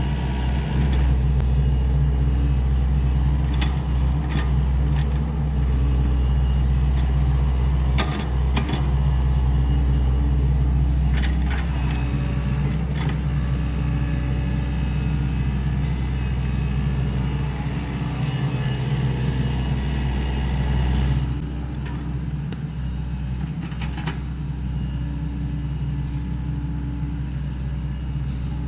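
Diesel engine of a Sany SY75 excavator running steadily under work, with a few short knocks. The engine sound drops a little about two-thirds of the way through.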